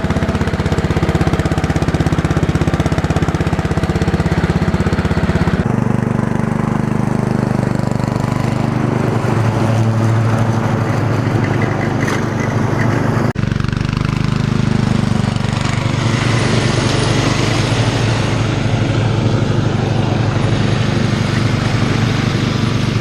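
Riding lawn mower's engine running steadily under load while mowing, its tone changing abruptly about six seconds in and again about thirteen seconds in.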